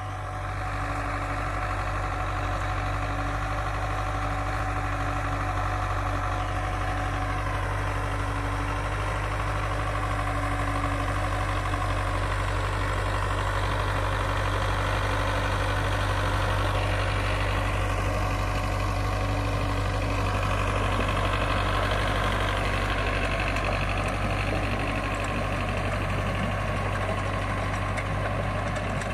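Belarus 510 tractor's diesel engine running steadily while the tractor pulls a rotary tiller through the field.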